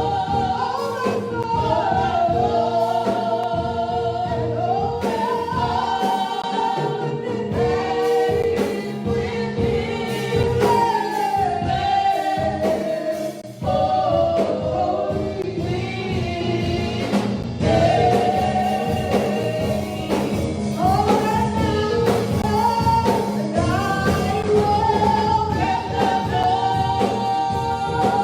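Gospel praise singing by several voices, with a sustained keyboard or organ chord underneath.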